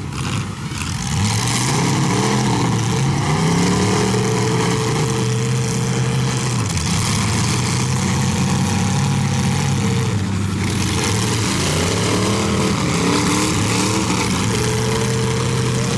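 Demolition derby cars' engines running and revving hard, several at once, their pitch rising and falling continually.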